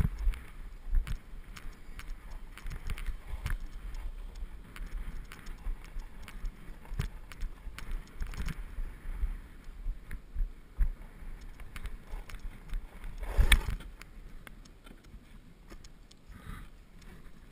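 Snowboard sliding and scraping over packed, tracked-out snow at low speed, heard from a body-mounted action camera, with irregular knocks and a low rumble. A loud thump and rustle comes about three-quarters of the way through as the rider sits down in the snow, and the sound is softer after it.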